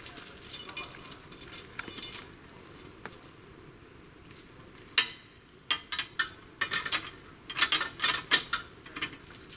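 Sharp clinking and rattling with a ringing edge, as of hard objects knocking together, in two spells: a quicker run in the first two seconds and a louder cluster from about five seconds in.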